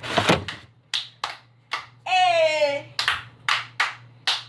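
Hand claps, sharp and single, about seven of them at an uneven beat, with a long drawn-out vocal call falling in pitch in the middle.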